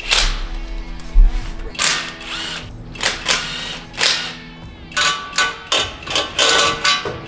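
Cordless power tool run in a series of short bursts, loosening the header bolts on an old V8 engine, over background music.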